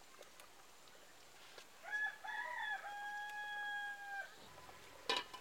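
A rooster crowing once, starting about two seconds in, with a few wavering notes and then a long held note. A couple of sharp clicks near the end.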